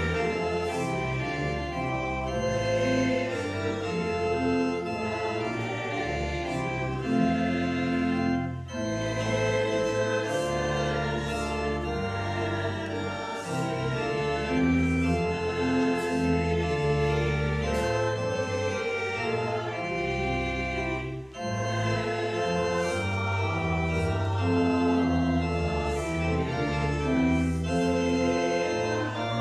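Church pipe organ playing a hymn in full sustained chords, with the congregation singing along. Two brief breaks between phrases, about 9 and 21 seconds in.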